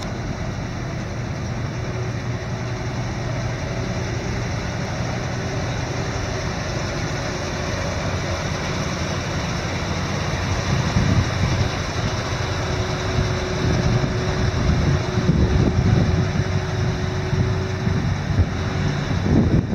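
A 1970 Dodge medium-duty truck engine idling steadily. From about halfway through, gusts of wind buffet the microphone.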